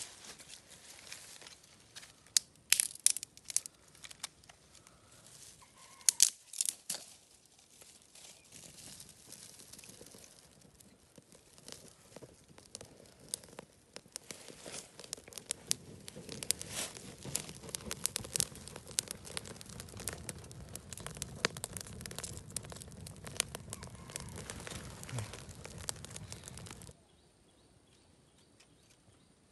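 Dry fern fronds and twigs crackling as a small fire catches under them, after a few sharp snaps near the start. The crackling cuts off abruptly near the end.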